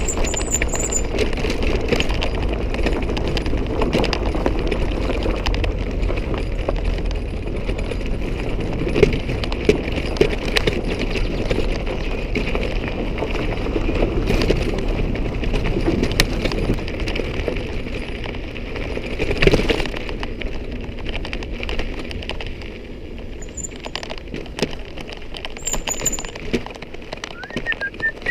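Mountain bike rolling down a rough trail: a steady low rumble with clattering and sharp clicks and knocks from the bike. It eases off after about 20 seconds, and a bird chirps near the end.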